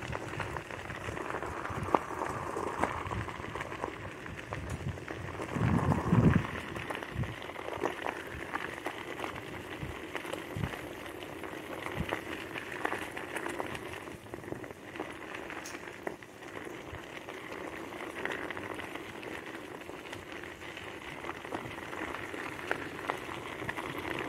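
Scooter wheels rolling over a gravel road strewn with dry leaves: a steady crunching crackle of small stones. About six seconds in, a louder low-pitched rush lasts for about a second.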